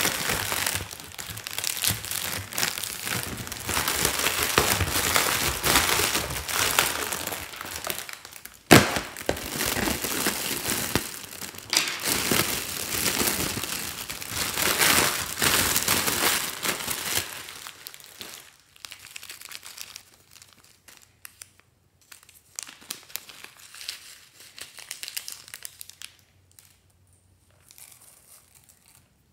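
Thin metallic foil being crumpled and crinkled by hand, dense and continuous at first, with one sharp snap about a third of the way in. It then thins to sparse, quieter crackles over the last third.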